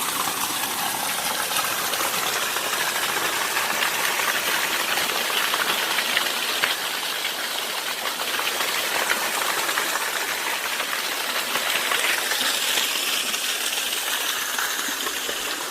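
Small waterfall: water falling and splashing in a steady, unbroken rush.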